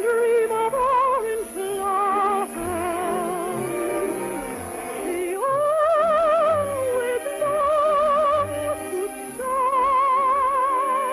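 A soprano singing an operetta melody in long held notes with wide vibrato, with orchestral accompaniment.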